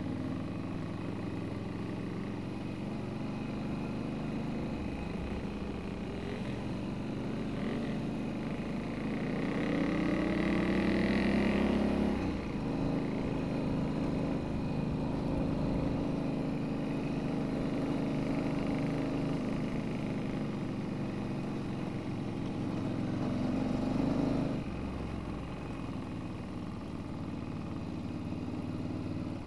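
Motorcycle engine running at low speed, its pitch rising under throttle about ten seconds in and dropping off sharply as the throttle is closed, with another sharp drop later on.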